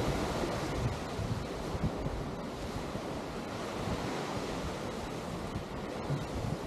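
Atlantic surf washing onto a sandy beach as a steady wash of noise, with wind buffeting the microphone in low rumbling gusts.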